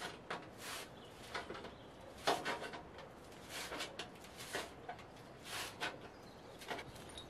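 A hand tool scraping along a long board in short strokes, about a dozen of them in uneven groups, each a quick rasp.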